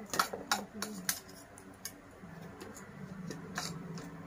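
Light clicks and taps of tableware: a spoon against plates and a drinking glass being handled during a meal. They come quickly, several in the first second, then only now and then.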